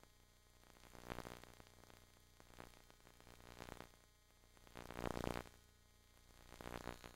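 Near silence: a faint hiss that swells softly a few times, most strongly about five seconds in.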